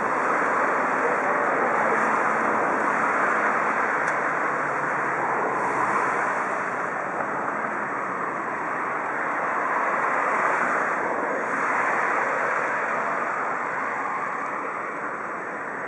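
Steady rushing noise of a rail yard and the city around it, swelling gently a few times, with wind on the microphone.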